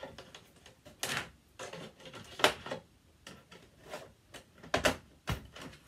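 Hard plastic dollhouse parts clacking and knocking as a railing piece is handled and pushed into the floor base: a handful of sharp clicks, the loudest about two and a half seconds in and again near the end.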